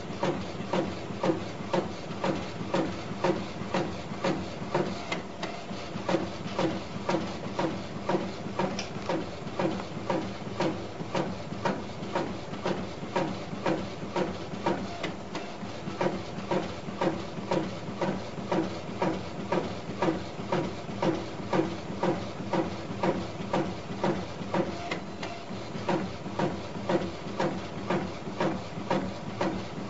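UV pen printer printing: its inkjet print-head carriage shuttles back and forth with a whirring motor, in an even rhythm of about three passes every two seconds.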